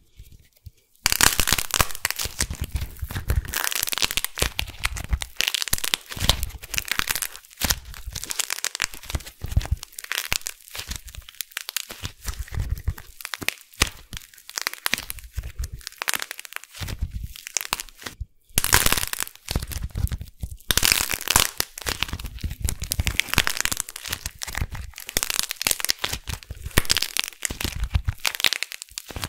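Dried clay shell cracking and crumbling between the fingers: dense, continuous crackling and crunching. There is a short pause about a second in and another brief one about two-thirds of the way through.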